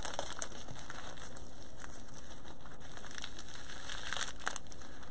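A plastic poly mailer bag crinkling and rustling as it is handled and torn open by hand, with a few sharper crackles about four seconds in.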